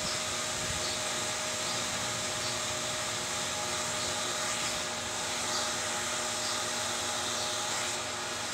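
Steady whooshing background noise with a faint steady hum, unchanging throughout.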